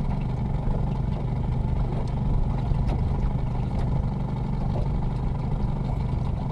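A boat's motor running steadily with an even, low hum, with a few faint clicks over it.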